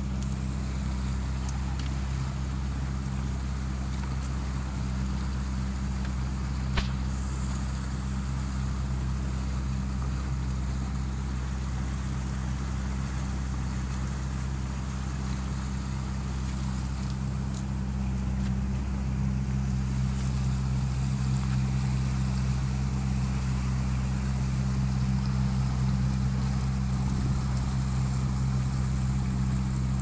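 Boat's engine running at a steady speed while under way, a steady low hum that grows a little louder about two-thirds of the way through, with one short click about seven seconds in.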